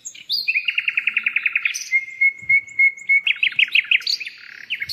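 A songbird singing: a fast trill of about a dozen quick repeated notes, then a steady held whistle for about a second, then a run of quick slurred notes.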